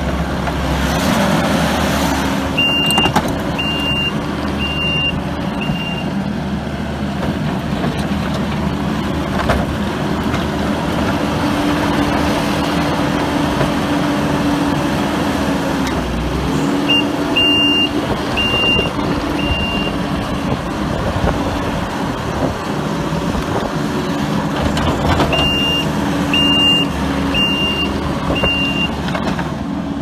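Kubota SVL75-2 compact track loader's turbocharged four-cylinder Kubota V3800 diesel running steadily as the machine drives around, its engine note dipping briefly about halfway through. A high backup alarm beeps about once a second in three runs of four or five beeps while the loader reverses.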